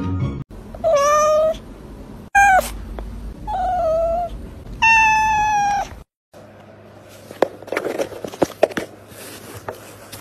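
A cat meowing four times, each a clear pitched meow, the last one the longest. After a brief break, a low steady hum with scattered clicks and rustles.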